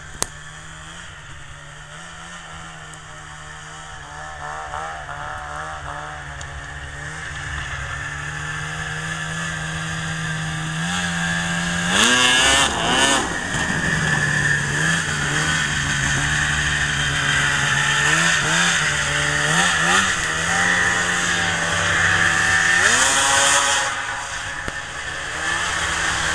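Arctic Cat Sno Pro race snowmobile's two-stroke engine idling, then revved hard in short blips: the first and loudest about halfway through, a few more over the next several seconds, and a longer rev near the end.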